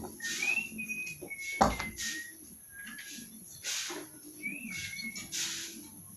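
Someone whistling short held notes that step up and down in pitch, over repeated scraping swishes, with one sharp knock about one and a half seconds in.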